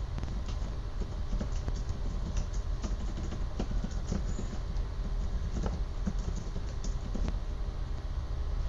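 Keystrokes on a computer keyboard as a word is typed: irregular, quick clicks over a steady low hum.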